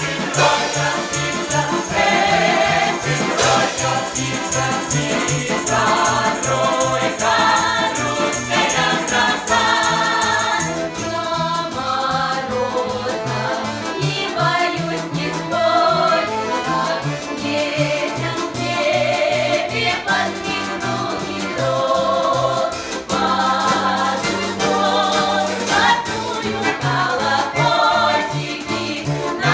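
Folk ensemble singing together in several voices, with instrumental accompaniment keeping a steady beat.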